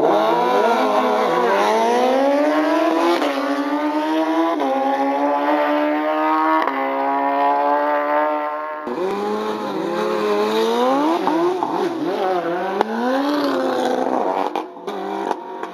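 Drag-racing motorcycles launching and accelerating hard: the engine note climbs and drops back with each upshift, several times over about nine seconds. The sound then changes abruptly to engine notes that rise and fall repeatedly.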